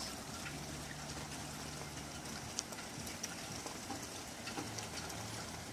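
Steady rain falling through an open window, with a few close drops ticking sharply now and then. A faint low hum lies under it.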